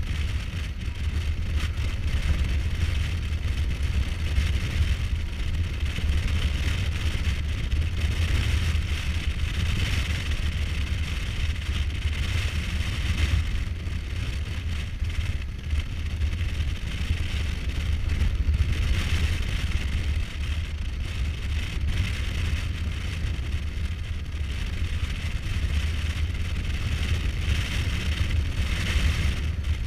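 Kawasaki Versys 1000's inline-four engine running steadily at cruising speed, mixed with a constant low rush of wind on the microphone.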